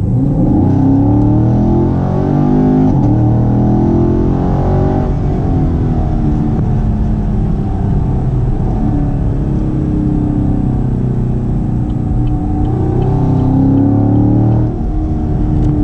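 2016 Chevrolet Camaro SS's 6.2-litre V8 at wide-open throttle through its NPP dual-mode exhaust, heard inside the cabin. The engine note climbs, drops at an upshift about three seconds in and climbs again, then holds fairly steady before rising once more and falling off near the end.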